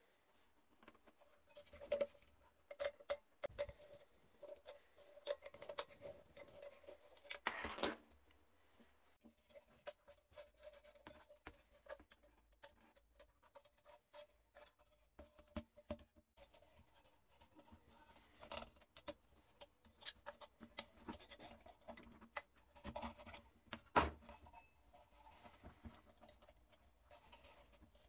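Hands rubbing a cloth over a rusty 1940s metal bicycle lamp and taking it apart: scattered scratching and rubbing with small metal clicks and taps. There is a longer rub about eight seconds in and a sharper click near the end.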